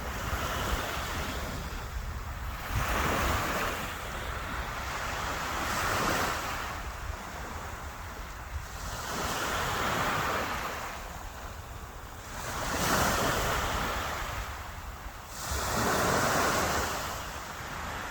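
Sea waves breaking and washing up the shore, each surge of surf swelling and fading about every three seconds, with a low rumble of wind on the microphone.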